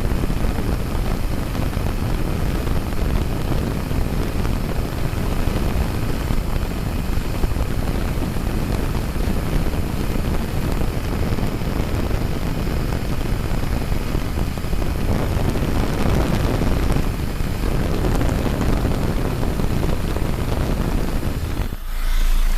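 BMW 320d's four-cylinder turbodiesel engine running with a loud, even rushing noise, which the owner puts down to bad turbo seals. Near the end the sound drops abruptly and changes to a steadier engine sound.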